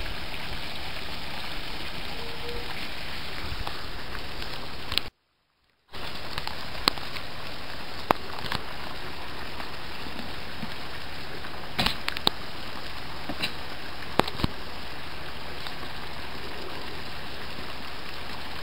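Steady rush of running drain water, with a few sharp clicks scattered through it. The sound cuts out completely for just under a second about five seconds in.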